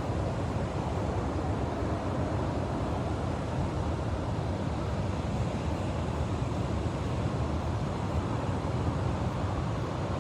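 Steady roar of ocean surf and wind, an even rumbling noise that is heaviest in the low end, with no separate breaks or gusts standing out.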